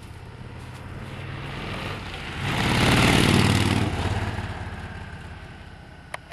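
2006 Honda VTX 1300's V-twin idling through its stock exhaust pipes. Midway a louder rushing swell builds and fades over about two seconds, and a short click comes near the end.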